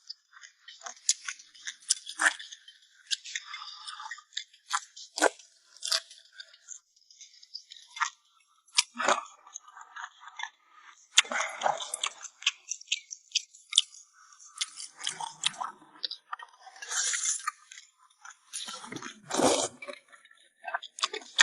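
A person biting and chewing crunchy spicy napa cabbage kimchi, in irregular bursts of crunches and crackles.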